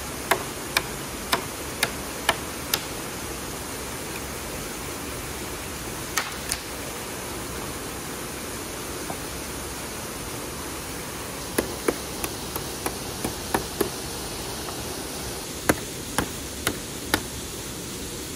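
Sharp strikes of a blade chopping into a green wooden branch, in several runs of about two strikes a second, over a steady rush of noise.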